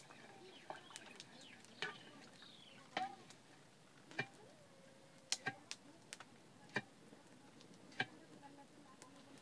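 Wood fire crackling under a cooking pot, with sharp snaps and pops at irregular intervals, roughly one a second. Faint bird chirps sound in the background.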